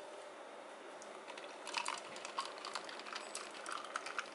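Light, irregular clicks and ticks from handling a plastic drink bottle and an ice-filled glass, starting about a second in, as a protein shake is poured over ice and coffee near the end.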